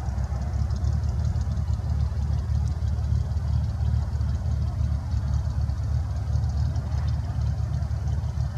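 Steady low rumble, even and unbroken, with no clear rhythm.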